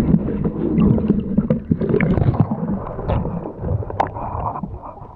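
Muffled water sloshing and gurgling around a camera in the water, with many small clicks and knocks over a low rumble. It gets quieter toward the end.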